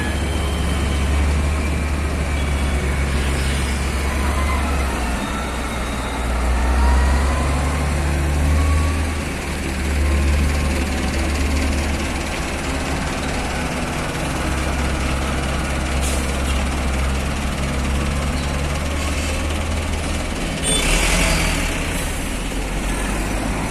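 Heavy diesel engines running at low revs: a steady deep rumble that swells and eases a few times. Near the end comes a short hiss of air.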